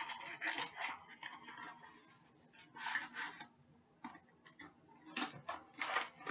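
Stainless steel cutlery and its packaging being handled: several short bursts of rustling with light clicks and taps.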